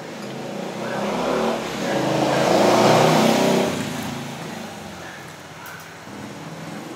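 A motor vehicle passing by in the street, its engine growing louder to a peak about three seconds in and then fading away.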